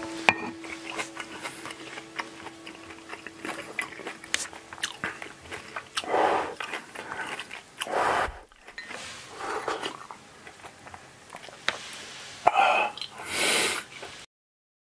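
Someone eating a soupy broth of grated daikon from a bowl: several short slurps with chewing between them.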